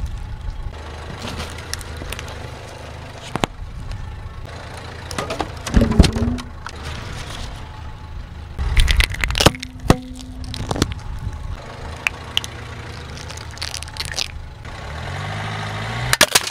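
A car engine idles low and steady while its tyre rolls over and crushes cupcakes and ice-cream cones. There are sharp cracks and crunches, loudest about six seconds in and again from about nine to eleven seconds in.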